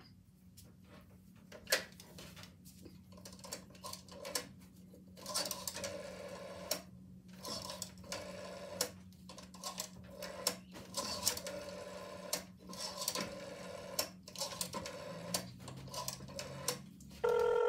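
Rotary telephone dial being turned and spinning back again and again: a run of clicks and whirring. Near the end a loud steady tone starts.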